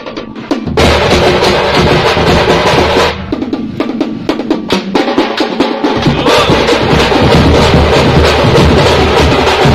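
Stick-beaten barrel drums played live in a fast, dense rhythm of sharp strokes. The deep drums drop out for a few seconds around the middle, leaving lighter, thinner strokes, then come back in full.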